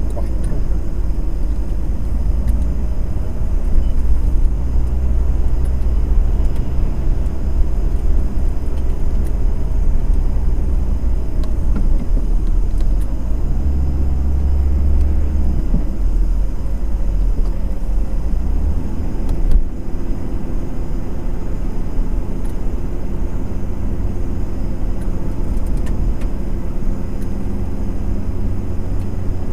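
Car driving: a steady low engine and road rumble, its engine note drifting slowly up and down.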